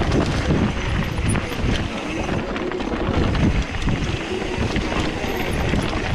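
Mountain bike riding down a dirt and rock singletrack: tyres rolling and crunching over the ground and the bike rattling over bumps, with wind buffeting the camera microphone.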